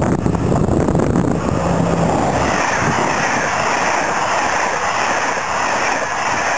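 SNCF BB 26000 electric locomotive with Téoz passenger coaches passing close at speed. A low rumble with wind buffeting the microphone as it approaches gives way, about two and a half seconds in, to a steady rush of wheels and air as the coaches go by.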